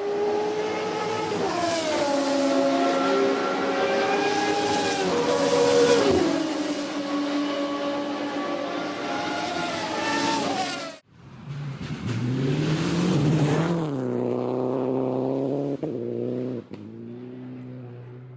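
Car engines running at speed, the pitch falling as a car passes, then cutting off suddenly about eleven seconds in. A second engine follows, rising in pitch and then settling to a lower steady note.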